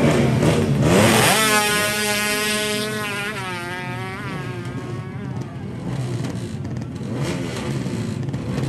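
Two-stroke drag-bike engine revved at the start line, then launched at full throttle. Its pitch climbs and dips at each of several gear changes as it pulls away and fades down the strip.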